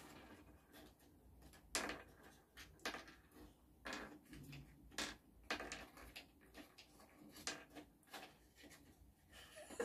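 Light, irregular clicks and taps of wooden chopsticks against small dishes as beans are picked up and dropped in one by one, roughly one click a second.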